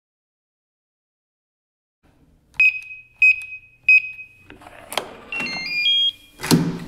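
Logo intro sound effects: three short electronic pings at the same pitch, about two-thirds of a second apart, then a click and a quick run of short tones at different pitches, ending in a louder hit with a low thud.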